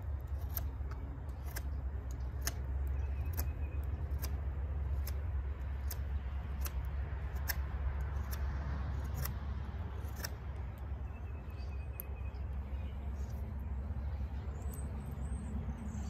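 Knife blade shaving wood off the end of a stick: irregular scraping strokes about once a second. A steady low rumble runs underneath.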